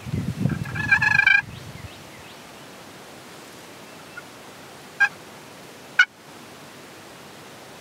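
Wild turkey tom gobbling: a loud rattling call in the first second and a half. Then two short, sharp calls about five and six seconds in.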